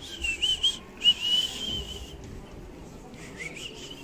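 High-pitched whistling that wavers in pitch, in two phrases over the first two seconds and then a fainter, rising phrase near the end.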